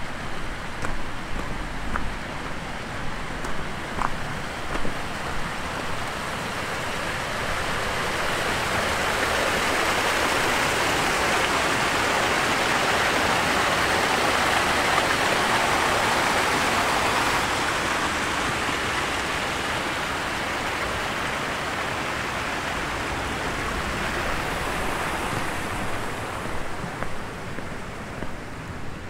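Mountain stream cascading over boulders, a steady rush of water that swells as it draws close around the middle and eases off again. A few footsteps on the gravel trail at the start.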